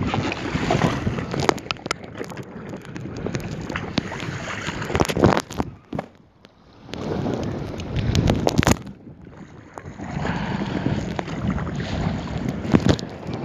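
Wind buffeting the microphone over water slapping and splashing against a kayak at sea, with a few sharp knocks. The wind cuts out briefly about six seconds in.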